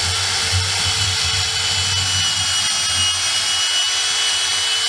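Bosch EasyCut 12 cordless 12-volt nanoblade saw running with a steady whine as its small chain blade cuts into the fat of a string-tied roast joint.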